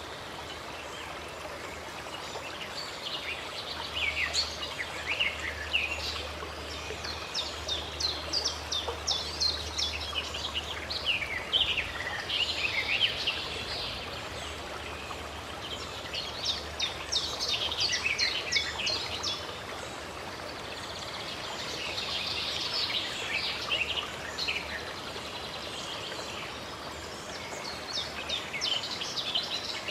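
Songbirds chirping and singing in repeated bouts of quick high calls over the steady rush of running water from a stream.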